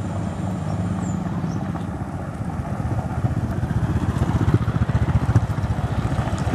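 Road traffic passing close: a motorcycle goes by at the start, then a Toyota pickup drives past, its engine and tyres on the rough road surface growing louder up to about five seconds in.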